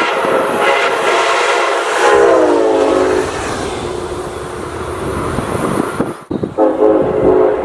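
Amtrak locomotive's multi-chime air horn sounding as the train passes. The chord drops in pitch about two seconds in and stops about a second later, leaving the rumble of the passing train. After an abrupt break about six seconds in, another horn blast starts.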